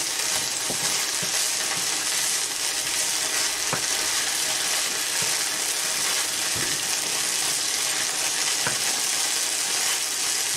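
Chopped onions sizzling in oil in a wok, stirred with a wooden spoon that gives a few light knocks against the pan.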